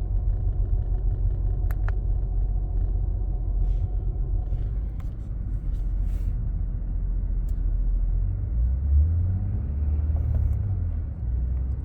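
2005 Acura TL's 3.2-litre V6 running, heard from inside the cabin as a steady low rumble that swells briefly about nine seconds in. The engine has a misfire that the owner can feel but the scan tool does not detect.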